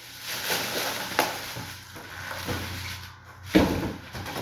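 Packaging being handled as a box is unpacked: rustling and scraping with a few sharp clicks, and a loud thump about three and a half seconds in.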